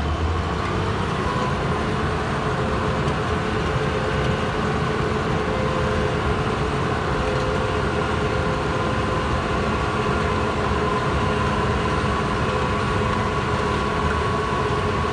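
Engine-driven farm machinery running steadily at harvest, a continuous mechanical drone with a steady hum.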